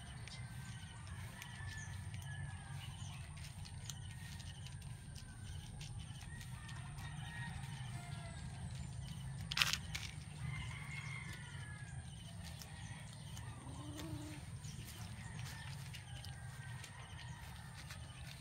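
Outdoor ambience: faint chirping calls over a steady low hum, with one sharp click about ten seconds in.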